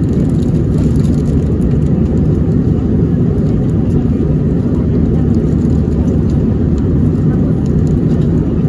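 Steady, loud cabin noise of an airliner in flight, a constant low rush of engines and airflow.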